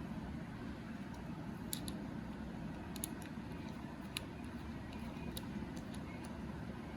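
A few light metallic ticks about a second apart as the side screws are undone on a laptop hard drive's mounting caddy, over a steady low hum.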